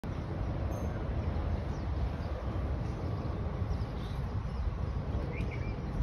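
Outdoor ambience: a steady low rumble, with a few faint, short bird chirps over it, one about halfway through and a couple near the end.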